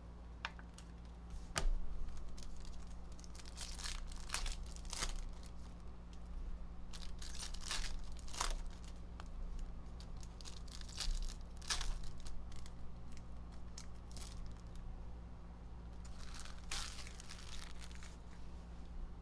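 Foil trading-card pack wrappers crinkling and tearing open in irregular bursts, with one sharp click about a second and a half in. A steady low hum sits underneath.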